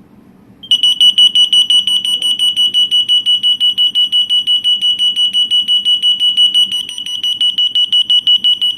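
TON-1S-24 24-volt fire-alarm siren sounding a loud, shrill tone that pulses rapidly. It starts about a second in and keeps going without a break.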